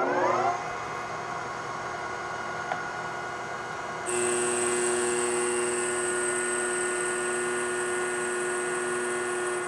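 Metal lathe spindle spinning up to speed, then running with a steady geared whine. About four seconds in the sound steps up louder and a high-pitched whine joins in.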